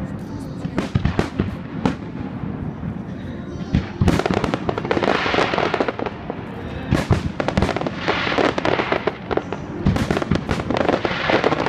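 Fireworks display: shells bursting in rapid succession, with dense crackling volleys in three waves, the strongest starting about four seconds in.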